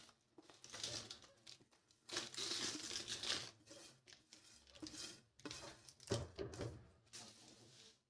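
Butter paper and a thin plate crinkling and rustling as hands scoop a crumbly ground peanut-and-jaggery mixture onto the paper, in irregular bursts.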